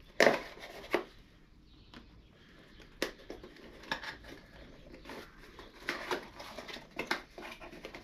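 A small cardboard box being slit open with a knife, then its flaps pulled apart and the packing handled. Two sharp scrapes of the blade come in the first second and are the loudest sounds, followed by scattered cardboard taps and rustles.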